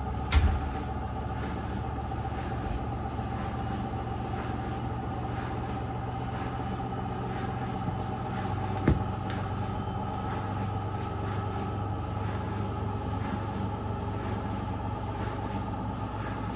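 Candy GrandO Vita Smart Fi+ front-loading washing machine running: a steady motor hum and rumble with a sharp knock just after the start and another about nine seconds in.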